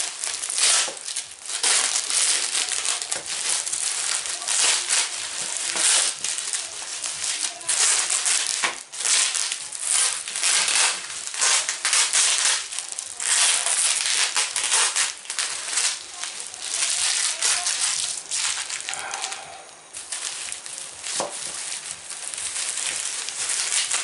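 A clear plastic bag holding oak chips crinkling and rustling as it is handled and opened, with dense crackling and small clicks. The noise goes quieter briefly past the three-quarter mark.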